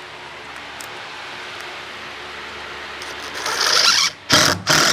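A cordless DeWalt driver drives deck screws into plywood: one long run about three seconds in, then two short bursts near the end.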